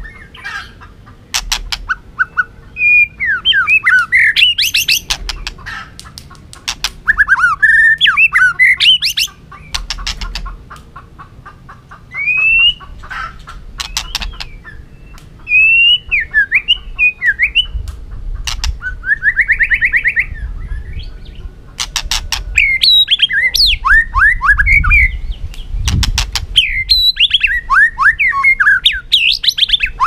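White-rumped shama singing a loud, varied song of whistled phrases that swoop up and down, fast trills and chirps, broken by quick series of sharp clicks.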